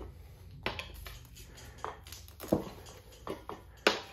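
Tire spoons knocking and clicking against a spoked dirt bike wheel rim as the tire's top bead is levered on over the rim. There are about six sharp knocks, and the loudest come about two and a half and four seconds in.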